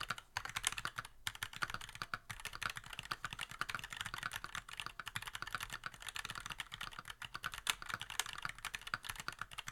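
Fast, continuous typing on a computer keyboard, close-miked: a dense run of key clicks with a couple of brief pauses about a second in.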